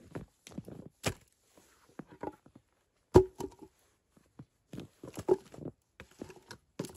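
A series of irregular knocks and thuds with rustling in between; a sharp knock about three seconds in is the loudest, and another strong one comes about two seconds later.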